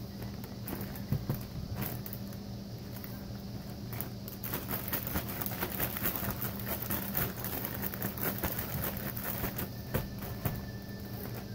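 Plastic zip-top bags crinkling and rustling as they are handled by hand, thickening into a dense crackle about four seconds in, over a steady low hum.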